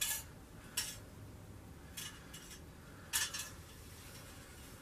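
Faint handling noise: a handful of light, irregular metallic clicks and rustles as the old and new freezer thermostats and their capillary tubes are handled.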